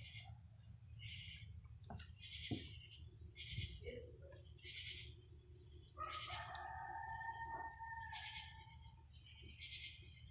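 Crickets and other insects chirping in a steady high trill, with a low background rumble. About six seconds in, a dog's long drawn-out howl holds for about three seconds; the listeners take it for the cry of a dog in pain, possibly hit by a vehicle.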